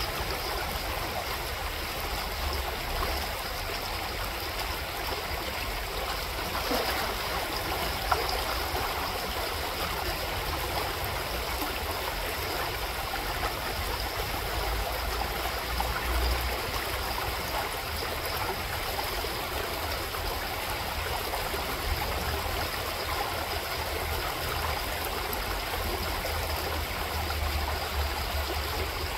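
Shallow gravel-bed creek flowing and babbling steadily over stones, with one brief sharp tick about eight seconds in.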